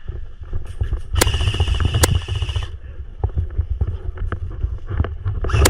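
M4-style airsoft rifle firing a full-auto burst of about two seconds, starting about half a second in, as a fast, even stream of shots. After it come scattered single shots and clicks, and another short burst near the end.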